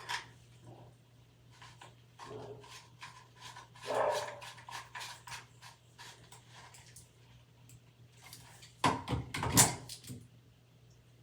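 Small clicks and knocks of plastic shower-head fittings and packaging being handled. A louder sound comes twice, about nine seconds in.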